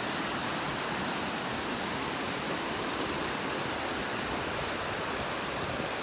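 Shallow mountain stream rushing over rocks in small cascades, a steady, even rush of water.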